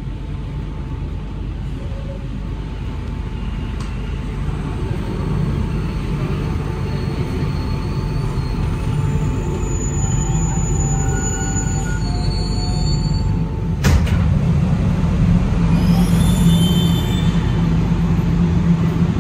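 Alstom NS-93 rubber-tyred metro train heard from inside the car, rumbling as it slows into a station, with faint high whines and squeals from the running gear. There is a sharp knock about fourteen seconds in, then the doors slide open near the end.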